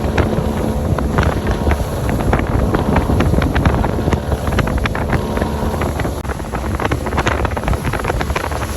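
Motorboat running under way, with wind buffeting the microphone and many short slaps or knocks over the steady low rumble.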